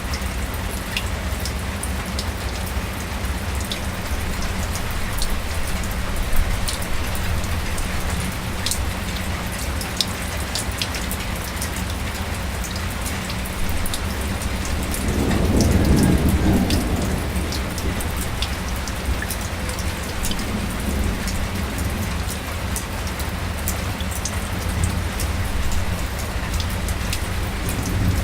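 Light rain (drizzle) falling steadily, with individual drops ticking sharply over an even hiss. About halfway through, a low rumble swells for a couple of seconds and fades.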